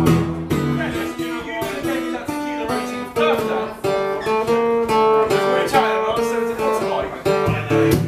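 Live folk-blues song: a Washburn acoustic guitar strummed in a steady rhythm, with a woman singing long held notes over it from about three seconds in.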